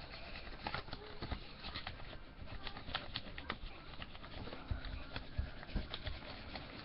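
Crayon colouring on paper on a tabletop: irregular scratchy strokes and light taps.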